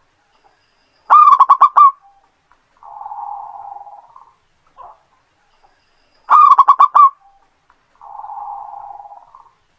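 Zebra dove (perkutut) singing its cooing song twice. Each phrase is a loud quick run of about five notes followed by a longer, softer rolling coo.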